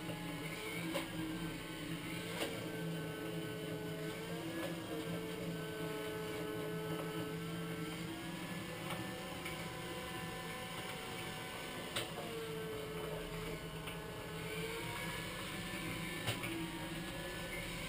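iRobot Scooba 230 robotic floor mop running: a steady motor whine whose pitch shifts and glides every few seconds as the robot drives and turns, over a low hum. A few sharp clicks sound through it.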